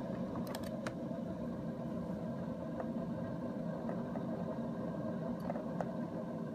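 Steady mechanical hum of a Keurig 2.0 K350 coffee brewer preheating its water. A few light clicks of its plastic housing sound about half a second in.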